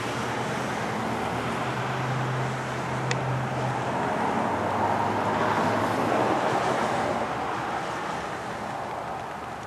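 Outdoor rush of vehicle noise, like distant road traffic, swelling in the middle and easing off near the end, with a low hum in the first few seconds and one sharp click about three seconds in.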